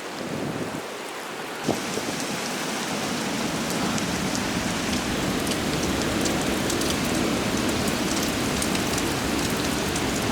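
Heavy wind-driven rain in strong storm gusts: a dense, steady hiss with many drops ticking close to the microphone. A click comes about two seconds in, and after it the sound grows fuller and slowly louder.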